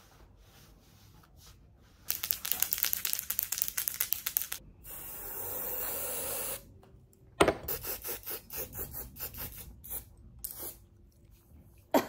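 Aerosol spray can shaken with a quick rattle, then sprayed in one steady hiss of about two seconds, followed by another run of quick rattling strokes.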